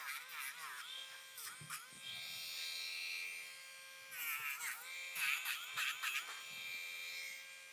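Handheld rotary dog nail grinder running with a steady buzzing whine, its pitch dipping and recovering several times as the sanding band is pressed against the claws of a dog's back paw. The grinder bit is worn low, due to be changed.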